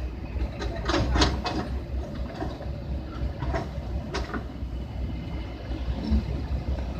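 Heavy truck engine rumbling low and steady, with a few sharp metallic knocks, several about a second in and more near four seconds in.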